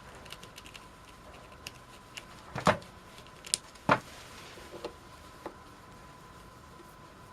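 Tools and small parts clicking and clinking on a workbench during carburetor disassembly. Two louder knocks come a little before the middle, about a second apart, followed by a few lighter taps.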